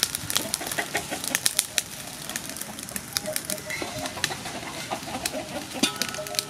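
Domestic chickens clucking, with a few short calls near the middle and near the end, over many short sharp clicks throughout.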